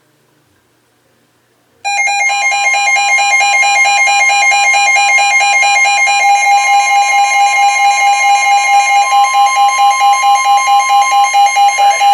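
Emergency alert attention tone: near silence, then about two seconds in two steady high tones start at once, loud and harsh, and hold on, pulsing in loudness in the second half.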